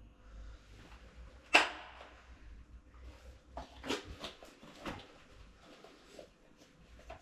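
Clicks and knocks from a Husqvarna 40 chainsaw being handled on a concrete floor: one sharp knock about a second and a half in, then a few lighter clicks of its controls and plastic casing around four and five seconds in.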